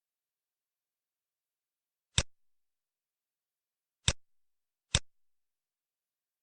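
Three short, sharp clicks, unevenly spaced, the last two less than a second apart, with dead silence between them.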